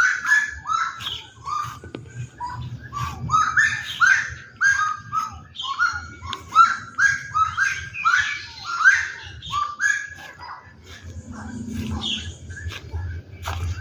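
Common gallinules calling: a long, rapid run of short clucking notes, each sliding down in pitch, several a second, that thins out about ten seconds in.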